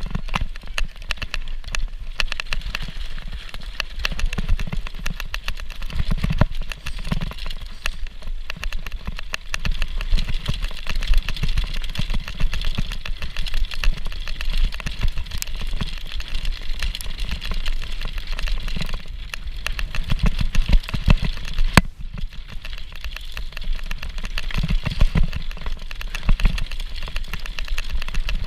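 Mountain bike descending a bumpy, snowy dirt trail, heard through a GoPro Hero4 action camera: a steady wind rumble on the microphone with constant rattling and clattering of the bike and camera over the rough ground, and a few sharper knocks.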